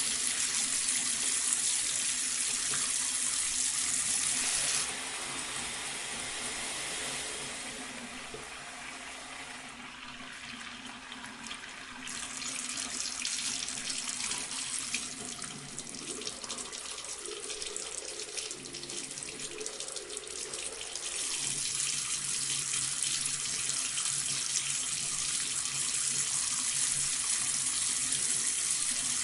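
Bathroom sink faucet running, water pouring steadily into the basin. The splashing drops in loudness about five seconds in, builds again around twelve seconds and is fuller from about twenty-one seconds on.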